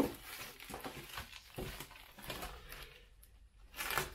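Plastic packaging being handled: a bag of small parts crinkling and rustling in short, irregular rustles, briefly quieter about three seconds in, then louder again near the end.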